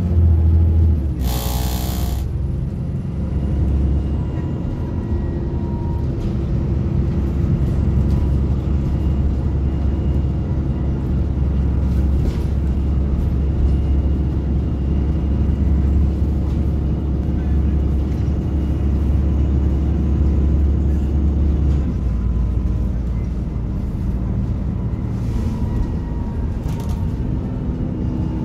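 A bus engine and ZF automatic gearbox running on the move, heard from inside the bus: a steady low rumble with a faint whine. About a second in there is a short, loud hiss, and about 22 seconds in the engine note drops.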